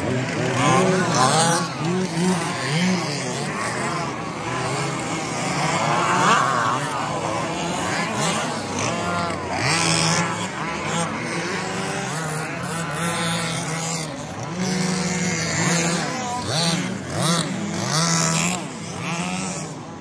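Several large-scale petrol RC Baja buggies racing, their small two-stroke engines repeatedly revving up and dropping back as they accelerate and brake around the track.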